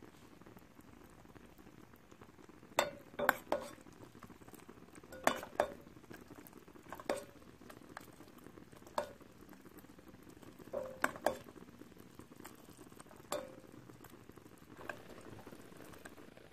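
Sugar syrup bubbling at the boil in a pan, with a utensil or skewer clinking against the pan about a dozen times at irregular intervals, some in quick clusters.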